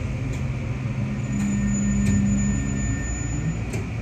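JR Kyushu BEC819 'DENCHA' battery-electric train running on battery power as it slows toward a station. A steady low rumble comes from the train, with a motor hum that rises for a couple of seconds in the middle and a few sharp clicks.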